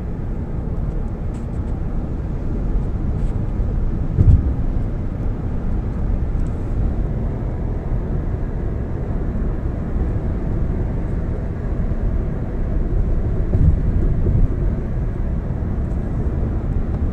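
Steady low rumble of a car on the move, heard from inside the cabin: tyre and engine noise, with a brief louder thump about four seconds in and a smaller one near the end.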